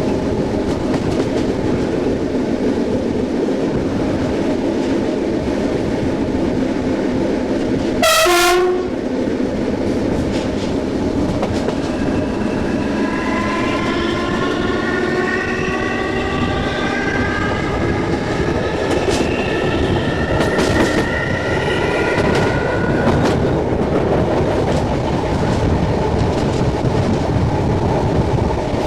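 SNCB AM80 electric multiple unit on the move, rail rumble and clatter with wind on the microphone. About a third of the way in, a short horn blast falls sharply in pitch. Then the traction motors whine as the train accelerates, several tones rising in pitch together before fading out.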